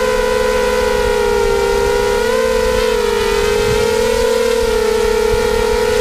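The brushless motors and propellers of a 250-size FPV racing quadcopter whining steadily at close range, the pitch wavering slightly with throttle as it flies low.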